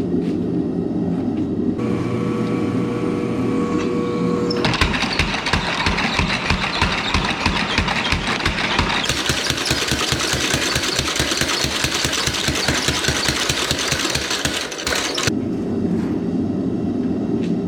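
Power hammer drawing out a hot Damascus billet: a fast, even train of blows, about four to five a second, that starts about five seconds in and stops abruptly near the end, over a steady low roar.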